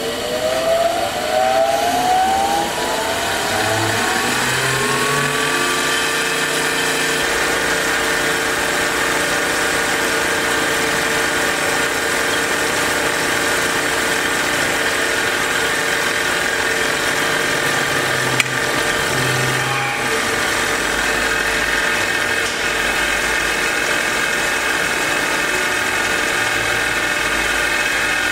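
Brierley ZB-50 drill grinder's electric motor and grinding wheel spinning up with a rising whine after being switched on, then running steadily at full speed with no load. A single brief click about two-thirds of the way through.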